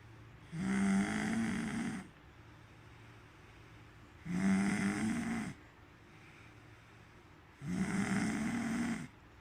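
A person snoring loudly, three long snores about three and a half seconds apart, each lasting about a second and a half, with quiet breathing pauses between.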